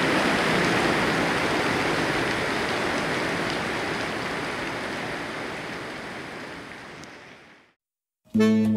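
Steady rushing noise of heavy rain that fades out over the last few seconds into a brief silence, with music starting just before the end.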